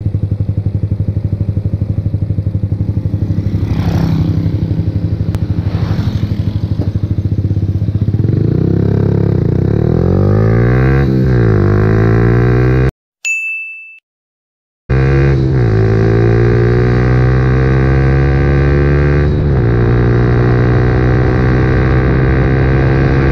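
Suzuki Gixxer 150 FI's air-cooled single-cylinder engine running steadily at first, then revving hard under full-throttle acceleration through the gears, its pitch climbing and dropping back at each upshift. About halfway through, the engine sound cuts out for about two seconds, broken by a short ding.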